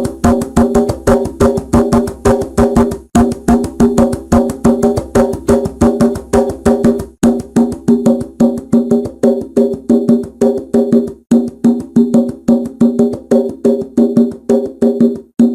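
Rhythmic percussion: a wood block-like instrument struck rapidly and evenly, about four or five hits a second, each with a short pitched knock, in a repeating pattern that pauses briefly about every four seconds.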